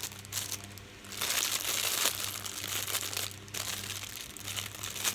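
Plastic packaging crinkling and rustling as it is handled and pulled off, quieter for a moment near the start and then continuous.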